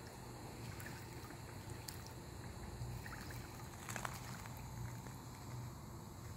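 Faint swimming-pool ambience: a steady low hum under light lapping water, with a few small ticks and one sharper click about four seconds in.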